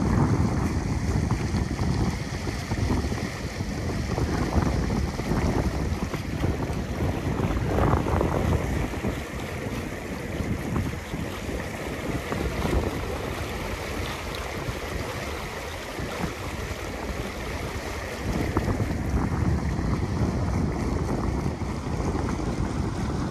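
A moving boat: wind buffeting the microphone over the rush of water along the hull, a steady noisy rumble with no clear engine tone.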